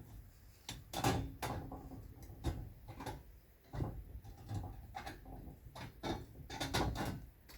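Irregular knocks and clicks from hand work on the fence, a dozen or so at uneven spacing.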